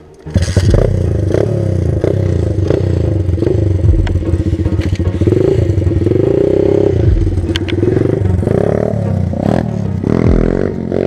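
125 cc pit bike engine running and revving up and down, heard up close. It cuts in abruptly just after the start.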